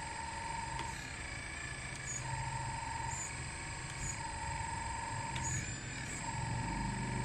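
A 1:14-scale RC backhoe loader running: its small electric motors whir steadily, with a low hum that swells and drops as the machine works. A high tone comes and goes about every two seconds.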